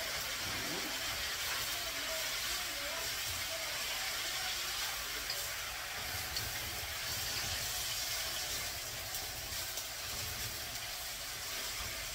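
Chinese broccoli (gai lan) sizzling as it is stir-fried in a wok over a gas burner: a steady hiss.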